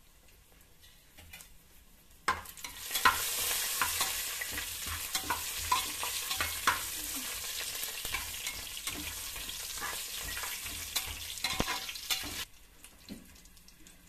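Whole spices, cashews and kasuri methi sizzling in hot ghee and oil in an aluminium pressure cooker, with a ladle scraping and clinking against the pot as they are stirred. The sizzle starts about two seconds in and cuts off abruptly near the end.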